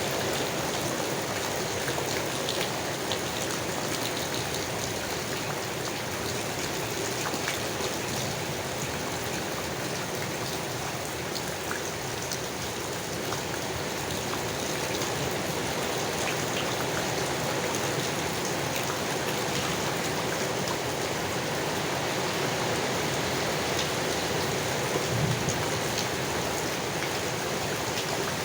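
Steady rain falling on leaves: an even wash of rain noise with scattered single drop hits.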